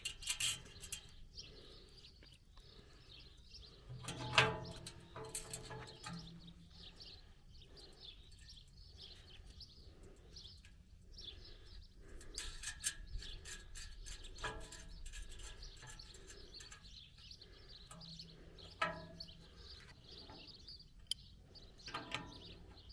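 Birds chirping in the background, with scattered clicks and knocks of hand work on a metal gate latch; a louder clatter comes about four seconds in.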